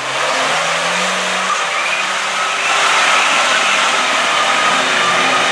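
Engine of a small mud-bog 4x4 running hard as it drives off through deep mud, getting louder about halfway through.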